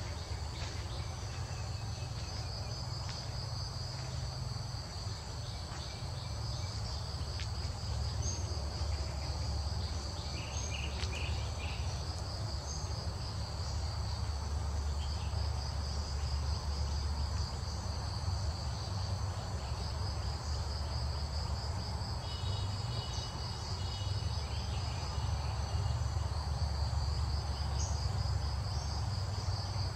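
Insects chirring steadily in a high, rapidly pulsing trill over a continuous low rumble. Short higher chirps break in twice.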